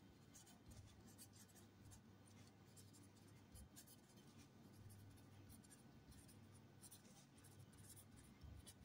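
Near silence with the faint, repeated scratching of handwriting strokes as the working is written out.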